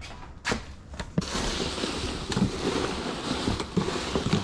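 Rummaging through a cardboard box of loose trash: a few knocks, then steady rustling and crinkling from about a second in.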